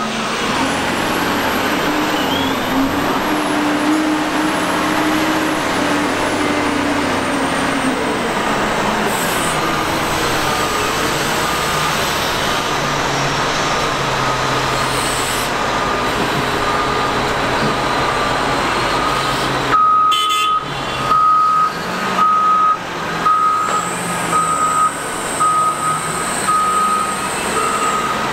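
Caterpillar 972M wheel loader's diesel engine running steadily as it works, with a backup alarm beeping faintly at first, then clearly about once a second over the last third.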